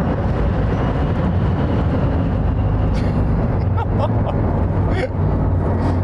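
Inside the cabin of a Rimac Nevera electric hypercar at over 200 km/h on the motorway: a steady, heavy rumble of tyres, wind and drivetrain as the car slows under braking. A few short clicks come about three and five seconds in.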